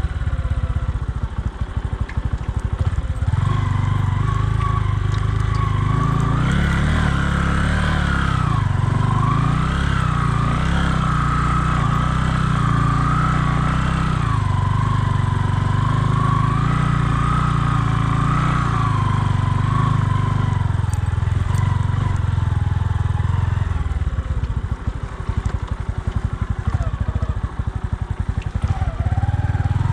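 Bajaj Boxer 150's single-cylinder four-stroke engine running under way, with a whine that wavers in pitch through the middle stretch. The engine eases off about three quarters of the way through, then revs up again at the very end.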